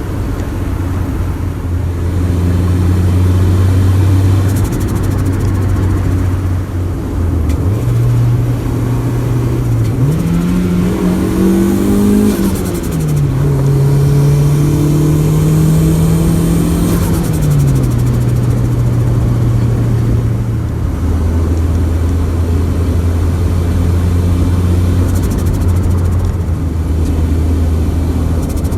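Turbocharged Honda Civic D16Y4 four-cylinder engine running under way, its note rising about ten seconds in, holding higher with a hiss over it, then dropping back near the twenty-second mark as the revs change.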